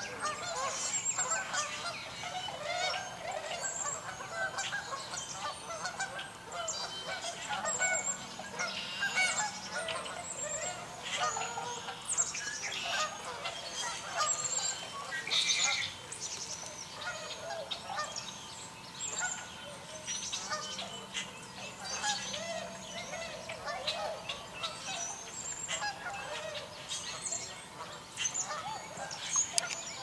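A flock of tundra swans and Canada geese calling continuously, a dense chorus of overlapping honks and whoops, with higher, shorter chirps mixed in.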